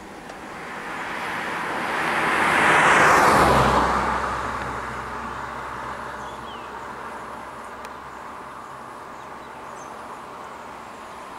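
A car passing close by on the road: its tyre and engine noise swells to a peak about three seconds in, then fades away slowly.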